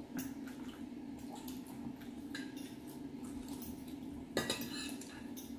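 Metal forks and spoons clinking and scraping against ceramic bowls during a meal: scattered light clinks, with a louder clatter near the end, over a low steady hum.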